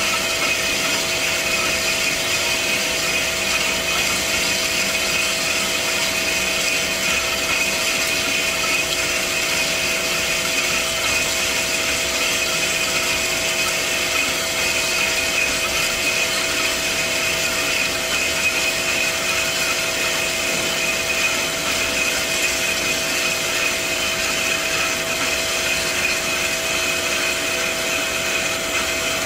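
Hyd-Mech DM-10/2 horizontal metal-cutting band saw running steadily, its blade cutting through a metal tube held in the vise, with a constant hum and whine.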